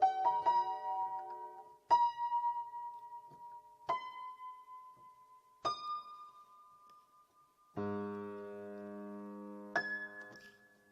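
Slow solo piano prelude: single notes struck about every two seconds, each a little higher than the last, then a held chord with a low bass and one final high note that dies away.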